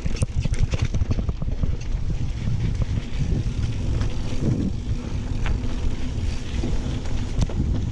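Mountain bike clattering over a rough dirt trail: a steady low rumble from the tyres and wind on the action camera's microphone, with many sharp knocks and rattles from the bike's frame and components.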